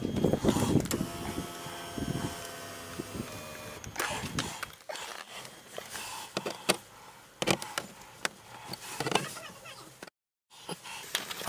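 Power seat motor whining steadily for about four seconds as the driver's seat travels. Then a run of sharp clicks and knocks from hands and a tool working on plastic trim under the dashboard.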